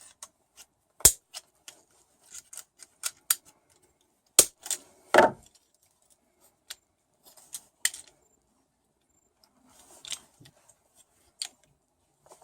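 Small hand tools snipping and prying at a plastic dimmer light switch: irregular sharp clicks and snaps, with a few loud ones among lighter ticks.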